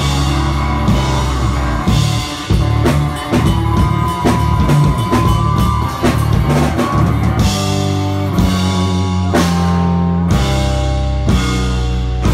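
Live rock band playing loud: electric bass, acoustic guitars and drum kit. Busy drumming in the first half, then full-band chords struck and held, about one a second, near the end.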